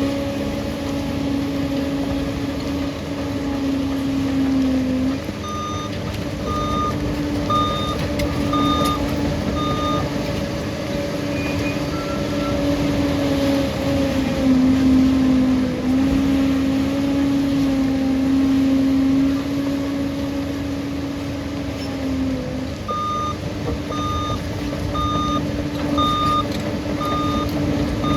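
Liebherr bulldozer's diesel engine running under load with a steady drone that shifts in pitch now and then. Its reversing alarm beeps at an even pace about five seconds in and again near the end, as the dozer backs up.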